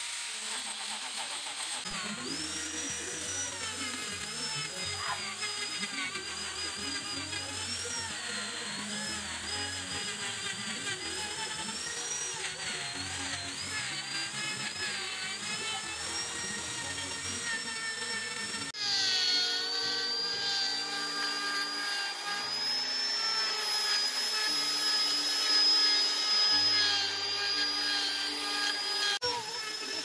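Handheld electric grinders, an angle grinder and a straight die grinder, cutting and shaping wood. Their motor whine wavers up and down in pitch as the tool is loaded against the wood, and becomes steadier after an abrupt cut about two-thirds of the way in. Background music plays underneath.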